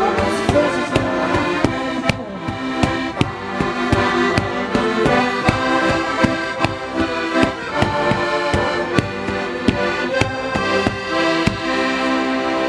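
Accordion playing a traditional folk tune, with sharp wooden knocks about twice a second from threshing flails beating a sack in rhythm.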